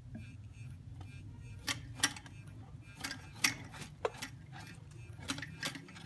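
Parrots' beaks biting and working at sweet potato: about eight sharp, irregularly spaced clicks and taps, the loudest around the middle.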